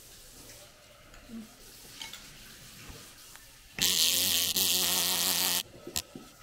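A loud electric buzz lasting about two seconds, starting a little past the middle and cutting off abruptly.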